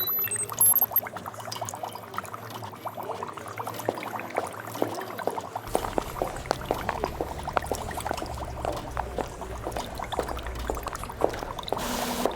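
Liquid pouring and bubbling in a laboratory ambience, heard as a dense run of small quick pops. A low steady hum comes in about halfway through, and there is a brief hiss near the end.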